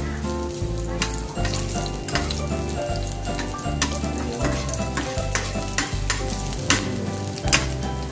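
Sliced ginger sizzling as it fries in hot oil in a stainless steel pan, stirred with a metal spoon that clinks against the pan.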